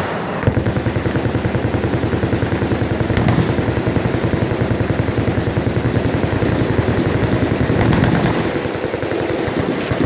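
Many machine guns firing full-auto at once, a dense, unbroken rattle of overlapping rapid shots that starts about half a second in.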